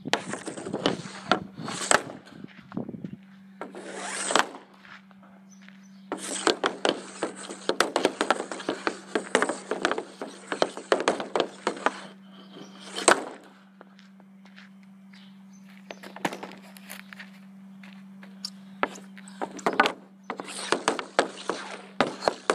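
Hockey stick blade stickhandling a puck on a plastic shooting pad: runs of rapid taps and scraping, broken by a few single sharp cracks of shots.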